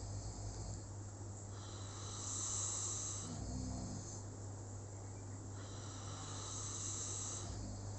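Slow, steady snoring during sleep: a hissing breath about every four seconds, over a steady low hum.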